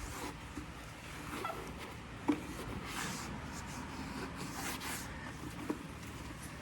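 A cloth wiping and rubbing over a wet-sanded plastic headlight lens in a series of irregular swishing strokes, with a sharp knock about two seconds in and a lighter one near the end.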